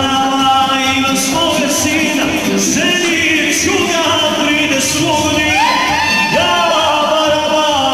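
Band playing kolo folk dance music with a steady beat, a voice singing over the melody.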